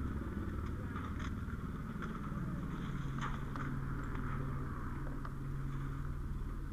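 Fire apparatus engine running as a steady low drone, with scattered short clanks and scrapes of ladder and gear being handled.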